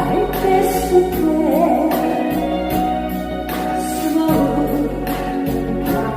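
A singer sings a slow Korean ballad live over instrumental accompaniment with a steady beat.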